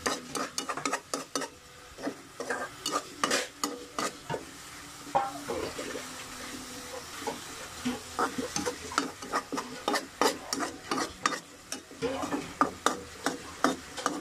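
Metal spoon scraping and tapping on a stainless steel pan while stirring bagoong alamang (shrimp paste) as it fries, over a light sizzle. The strokes come in irregular flurries and thin out for a few seconds in the middle.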